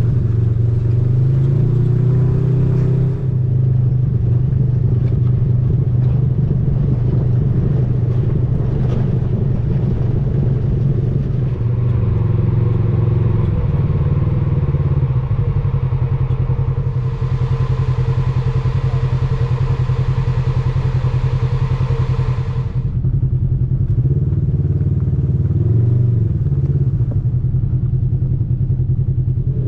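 Side-by-side off-road vehicle's engine running steadily under way, with small changes in engine speed. A hiss joins for several seconds past the middle.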